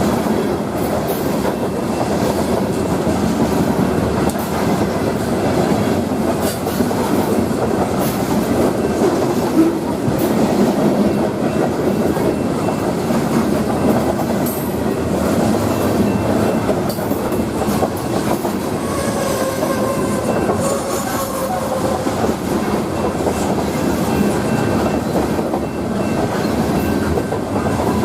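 Union Pacific grain train's freight cars rolling past, a steady rumble and clatter of steel wheels over the rail joints, with a faint wheel squeal about two-thirds of the way through.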